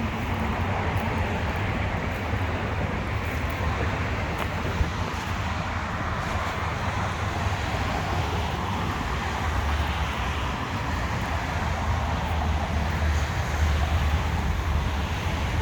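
Steady road traffic noise from a busy street: a continuous low rumble with a broad hiss over it.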